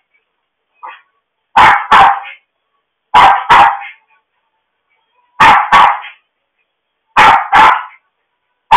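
A dog barking loudly in quick pairs, woof-woof, four pairs at a roughly even pace of one every one and a half to two seconds, with a fifth pair beginning at the very end.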